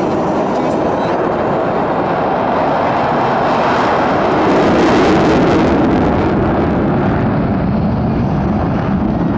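Boeing EA-18G Growler's twin jet engines: loud jet noise that swells to a peak about halfway through and then eases off.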